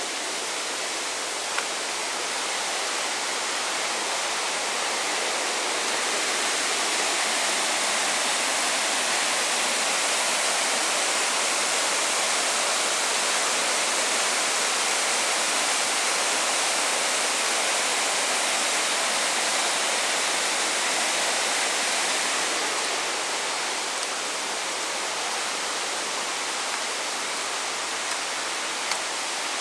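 Waterfall rushing steadily, swelling a little after several seconds and easing off again in the last quarter, with a few faint clicks.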